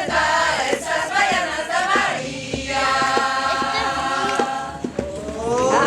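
A group of voices singing a chant together in unison, holding one long note through the middle, over a steady beat of samba drums.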